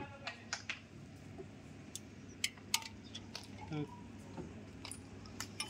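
Steel hand tools clinking and clicking against the top of a Cummins KT1150 diesel engine as a wrench and extension bar work the rocker-assembly bolts loose for a head gasket job. About ten scattered sharp clinks sound over a steady low hum.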